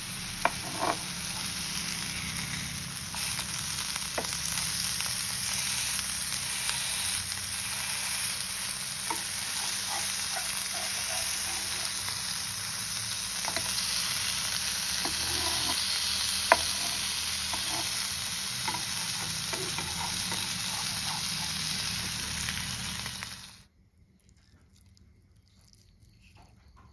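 Semolina-coated croaker fish sizzling as it shallow-fries in coconut oil on a flat pan, with a metal spatula now and then scraping and tapping the pan as the pieces are turned. The sizzle cuts off abruptly near the end, leaving a low quiet.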